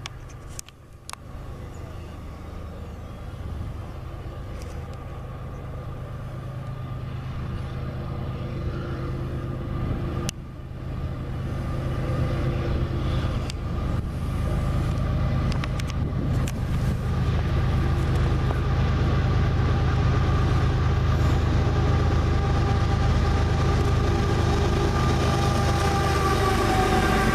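Canadian Pacific diesel freight locomotives approaching and passing, their engine drone growing steadily louder as the train nears, with the rumble of a double-stack intermodal train behind them.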